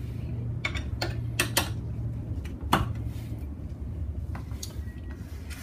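A few sharp metallic clicks and taps, the loudest a little under three seconds in, as a wrench is worked on the drain bolt at the bottom of a BMW K1200RS final drive housing. A faint steady low hum runs underneath.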